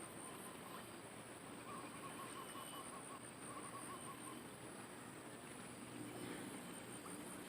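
Faint riverside ambience with a steady hiss and a thin high whine, and a bird calling a quick run of short repeated notes for a couple of seconds, starting about two seconds in.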